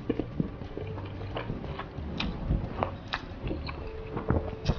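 A person slurping and chewing a mouthful of instant black bean noodles close to the microphone, with irregular wet clicks and smacks.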